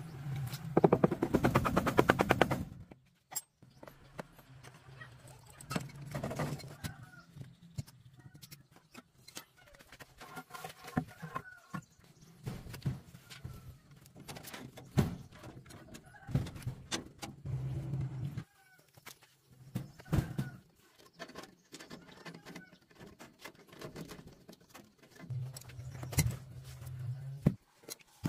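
Hands-on repair work on a threshing machine: a loud, fast mechanical rattle for the first couple of seconds, then scattered metal clinks, knocks and tool-handling sounds.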